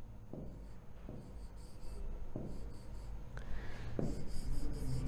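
Pen writing on an interactive smart-board screen: a few light taps as the pen touches down, about four in all, with scratchy rubbing strokes in between that grow busier in the second half.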